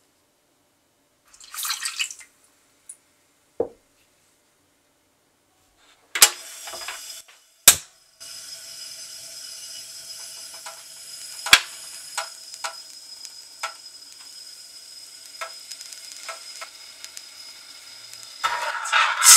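Water splashes briefly onto granulated sugar in a stainless steel saucepan, followed by a few sharp clicks as the gas hob is lit. A gas burner on low flame then hisses steadily, with occasional light clinks. Near the end a metal spoon stirs the sugar and water, scraping the pan.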